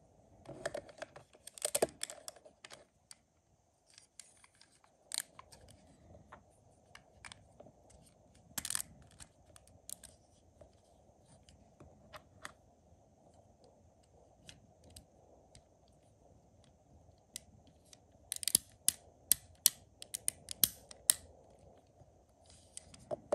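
Plastic LEGO Technic parts being handled and pressed together, with scattered sharp clicks and snaps and a quick run of clicks near the end.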